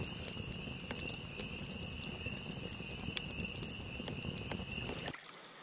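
Wood campfire crackling, with scattered sharp pops, over a steady high-pitched night chorus. The sound cuts off suddenly about five seconds in.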